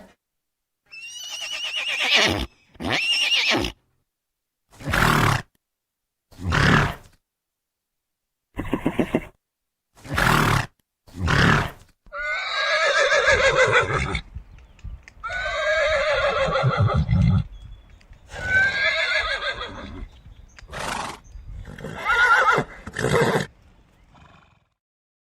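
Horse neighing and whinnying: about a dozen separate calls with silent gaps between them, short ones first and several longer whinnies in the second half.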